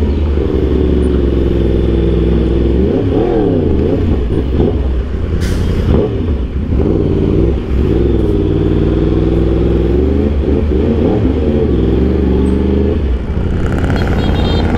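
Yamaha R1M's crossplane inline-four running through an Austin Racing aftermarket exhaust: a deep idle, with the revs rising and falling several times, around three, six, eight and eleven seconds in.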